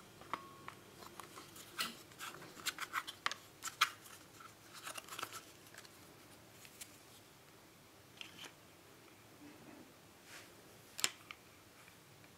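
Small clicks and taps of plastic and metal parts being handled and fitted by hand: a Husqvarna 55 chainsaw's plastic chain-brake housing, steel brake band and lever. A flurry of clicks in the first half, then a single sharp click near the end.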